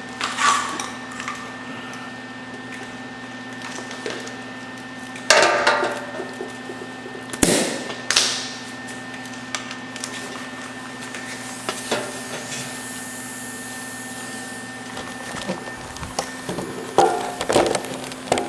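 A steady workshop hum with several sharp knocks and clatters of metal tools being handled at irregular intervals.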